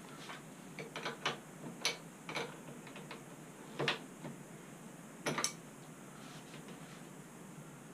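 Hand tools and metal parts being handled: scattered, irregular metallic clicks and light knocks, with no steady rhythm.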